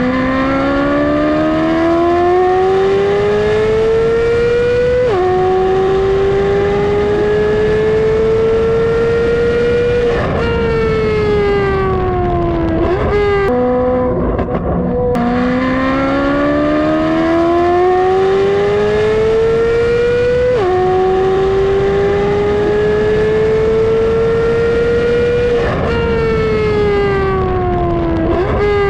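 Chevrolet Corvette C8 Z06's naturally aspirated flat-plane-crank V8, with an aftermarket exhaust, accelerating hard on a track. The pitch climbs high, drops at an upshift about five seconds in and climbs again. It then falls as the car lifts off and slows, with a few sharp pops. The same run plays twice.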